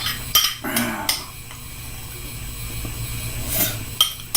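Someone eating noodles from a bowl with chopsticks: a few sharp clicks of the chopsticks on the bowl and short slurps, over a steady low hum.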